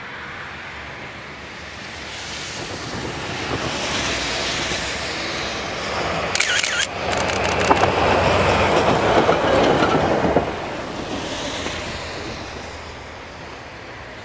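DE15 diesel-hydraulic locomotive with a Russell snowplow head passing close by. Its engine and rushing noise build as it approaches and are loudest for about four seconds in the middle. A quick run of sharp clicks comes just before the loudest part, and the sound fades as the train moves away.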